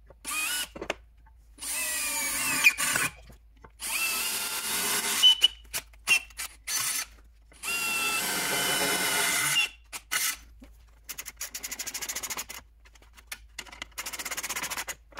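Cordless drill drilling holes through a steel bracket plate and bumper beam in four separate bursts, its motor whine rising and falling with each. Near the end a ratchet wrench clicks quickly in two runs as the bolts are tightened.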